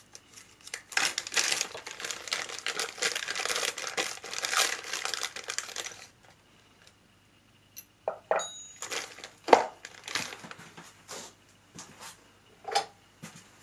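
Clear plastic bag crinkling for about five seconds as it is handled and opened, then, after a short pause, a handful of sharp clinks and knocks as small steel parts (a chuck worm screw and screws) are taken out and set down on a wooden table.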